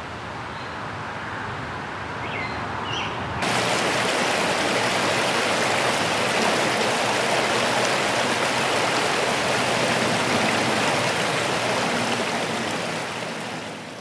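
A quiet outdoor background with a few short, high chirps. About three and a half seconds in it cuts abruptly to the steady rushing of a flowing stream, which fades out near the end.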